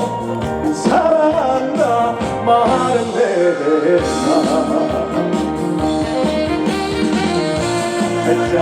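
Live band playing a trot song: a gliding lead melody over a steady pulsing bass and drum beat, in the instrumental break between verses.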